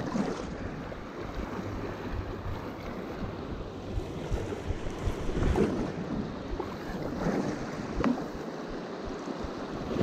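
Rushing whitewater of a river rapid around an inflatable kayak, a steady wash of water noise with wind buffeting the microphone. A few short louder moments break through about halfway in.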